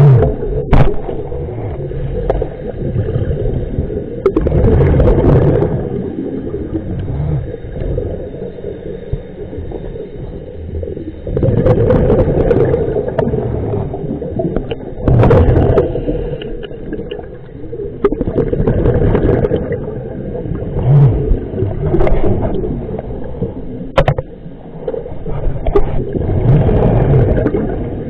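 Scuba diver's regulator breathing and exhaled bubbles, heard underwater: loud gurgling surges of bubbles every few seconds, with a low rumble between them.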